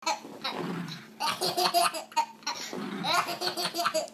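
Baby laughing hysterically, in several fits of rapid, breathless giggles with short pauses between them.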